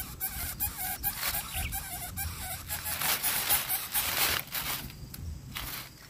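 Lesser coucal chicks begging at the nest: rapid, repeated squeaky calls, about four a second, that stop a little over two seconds in. A rustle of dry grass follows as the adult moves off the nest.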